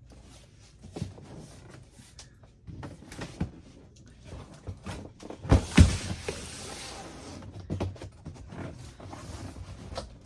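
Large, heavy cardboard box being handled: scattered knocks and rustling, then two heavy thumps about five and a half seconds in, followed by about a second and a half of scraping.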